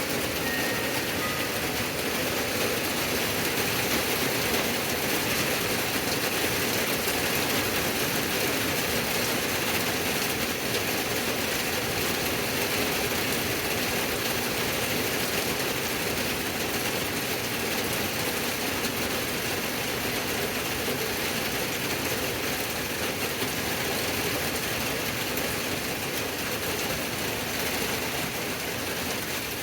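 Steady rain falling, an even hiss that holds at one level without letting up.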